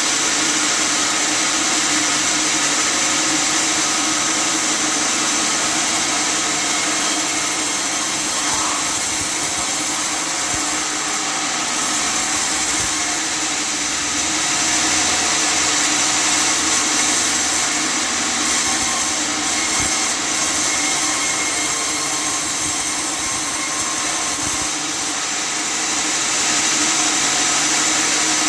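Custom-made table sawmill running steadily while sawing wood, a loud continuous machine noise.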